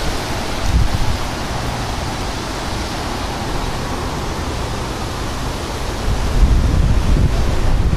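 Strong gusty wind at the leading edge of a severe thunderstorm, rushing steadily and buffeting the microphone. The low rumble of the buffeting grows heavier from about six seconds in.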